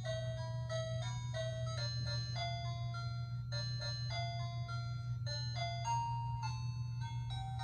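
KERUI wireless doorbell/alarm chime playing one of its built-in electronic melodies in music mode: a simple ice-cream-van-like tune of single stepped notes. A steady low hum runs underneath.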